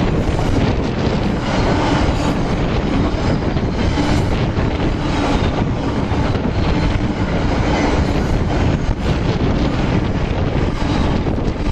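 Container wagons of an intermodal freight train rolling past at speed close by: a loud, steady rumble of wheels on rail.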